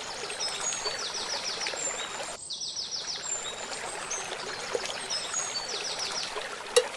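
Water spilling over a low weir, a steady rushing, with small birds chirping in short repeated trills over it.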